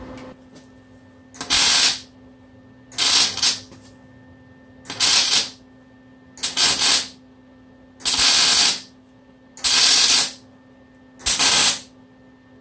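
Wire-feed (MIG) welder laying seven short welds in a row, each a sizzling crackle of about half a second to a second, with pauses of a second or so between them. A steady low hum runs underneath.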